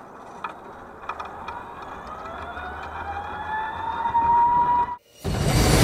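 Electric drive motor of an S12X Vita Monster mobility scooter whining, the whine rising steadily in pitch as the scooter picks up speed. About five seconds in, the sound cuts off sharply and loud background music begins.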